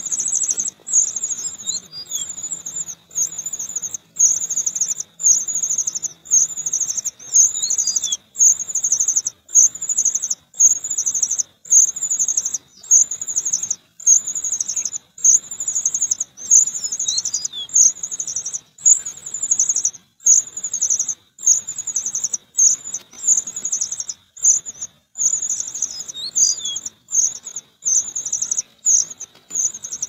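Cuckoo chick begging: a shrill, high-pitched call repeated steadily a little more than once a second, over a faint steady high whine.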